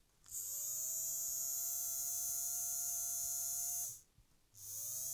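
Small five-pole electric motor from a Jouef TGV model locomotive, taken out of its bogie and run twice. Each time it spins up to a steady high whine, and the first run cuts off sharply just before 4 s. Its bearings have just been oiled, which doesn't really make much difference to the vibration in the motor.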